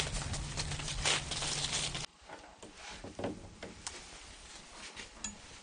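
Outdoor noise with rustling steps in dry leaves, then an abrupt cut about two seconds in to a much quieter room with a few faint light knocks.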